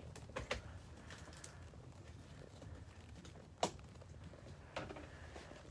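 Quiet room tone with a few faint, irregular knocks and taps; the sharpest comes about three and a half seconds in, another a second later.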